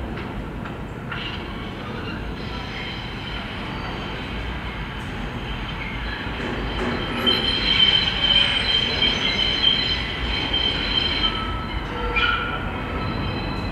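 New York City subway train running away down the tunnel with a steady rumble and a few clicks from the wheels over rail joints. About halfway through, the wheels squeal on the rails in a high, steady tone for several seconds, and there is a shorter squeal near the end.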